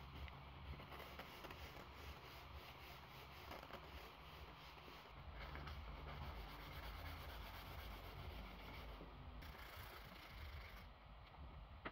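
Sandpaper rubbing back and forth along a wooden cane shaft, hand-sanding off the old varnish: a faint rasping over a steady low hum.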